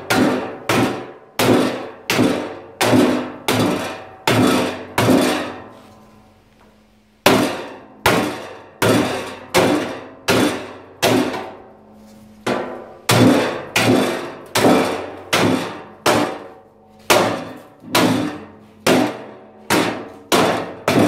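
Hammer blows on sheet metal, steady at roughly one to two a second, each one ringing on in the hollow metal bathtub hood as a corrugated flue pipe is tapped into place. There is a short pause about five seconds in.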